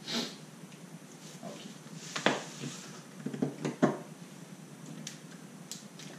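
Magic: The Gathering cards handled and set down on a playmat: a handful of short, soft taps and clicks, the sharpest about two seconds in and again just before four seconds.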